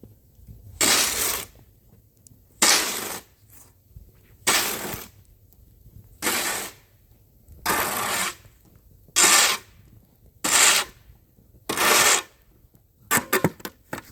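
Snow shovel scraping snow off the driveway in about eight long pushes, one every couple of seconds, with a few quick knocks of the blade near the end.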